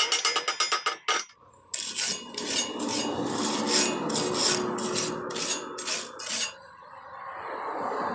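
A hand tool rasping on metal in quick, even back-and-forth strokes, about three a second, as in filing or hand-sawing a steel pipe. It is preceded by about a second of fast, regular ticking, and the strokes stop near the end.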